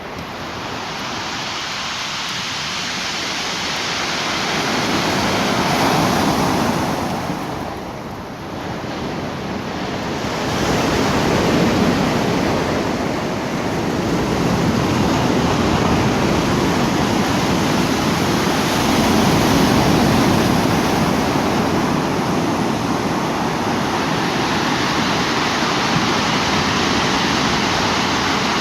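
Rough Black Sea surf washing onto the shore. The noise of the breaking waves swells and ebbs every few seconds.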